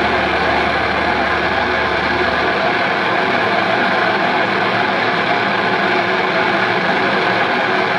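Loud, sustained drone of distorted electric guitar and bass feedback from a doom metal band through stage amplifiers: a dense, unchanging wall of held tones whose low bass drops out about two and a half seconds in.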